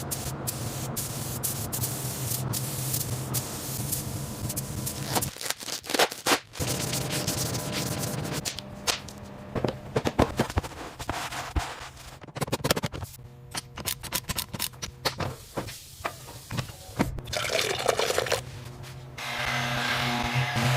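Background music with a steady low drone, overlaid by a fast-cut series of short noisy work sounds, some of them watery, that change abruptly every second or two.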